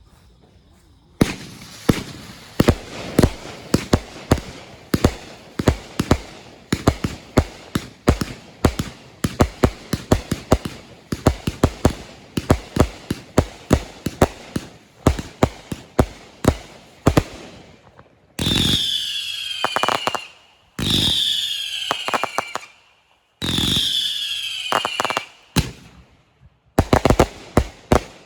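A long string of firecrackers going off in rapid, irregular bangs for about seventeen seconds. Then come three whistling fireworks, each a high whistle of about two seconds that falls in pitch, and a few more bangs near the end.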